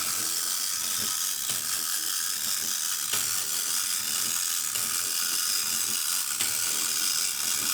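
Clockwork motor of a Korean-made tin wind-up swivel robot running: a steady mechanical whirring of small gears.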